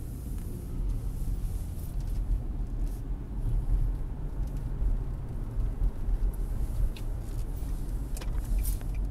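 Steady low rumble of a car driving, engine and tyres on the road heard from inside the cabin, with a few faint clicks in the last couple of seconds.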